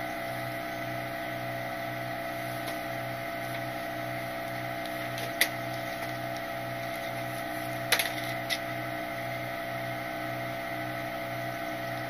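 Load Master Legacy rear-loader garbage truck idling: a steady machine hum with a slow, even low pulse. Three sharp knocks come through it, one about five seconds in and two close together near eight seconds.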